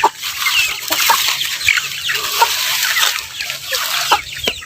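A flock of chickens clucking and chirping in many short, overlapping calls as they feed.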